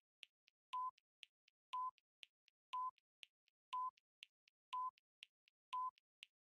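Countdown timer sound effect ticking off seconds: a short electronic beep once a second, with a fainter tick halfway between each beep.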